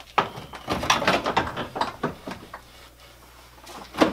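Radiator and plastic fan shroud assembly clattering and knocking against the car's front core support as it is lifted and fitted into place. A run of short knocks and scrapes comes first, then a quieter spell and one sharp knock near the end.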